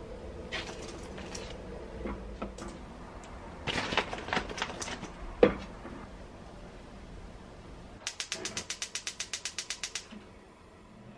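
Frozen dumplings are handled into a cheesecloth-lined bamboo steamer with light taps and cloth rustles, and one sharp knock about halfway through. Near the end a gas hob's spark igniter clicks rapidly, about eight clicks a second for two seconds, as the burner is lit.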